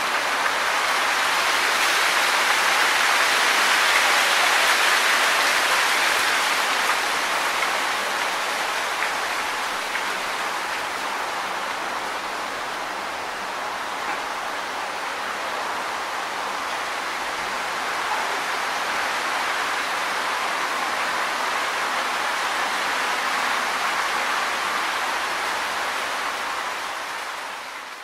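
Wind rustling through tree leaves: a continuous soft hiss of foliage that swells a few seconds in, holds steady, and fades away near the end.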